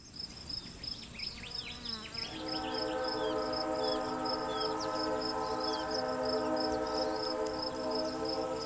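Crickets chirping in a steady rhythm, with a few short bird chirps early on. About two seconds in, a steady multi-tone locomotive drone comes in and is held, louder than the crickets.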